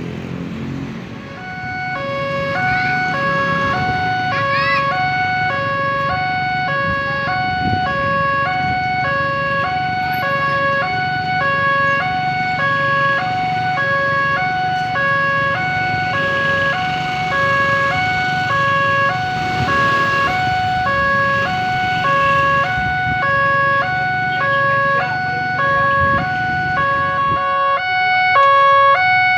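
Railway level-crossing warning siren sounding, two electronic tones alternating evenly and without pause, starting about two seconds in. A steady low rumble runs underneath.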